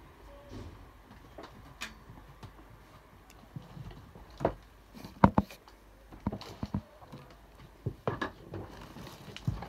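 Scattered sharp clicks and knocks over a faint low hum, the loudest a close pair about five seconds in.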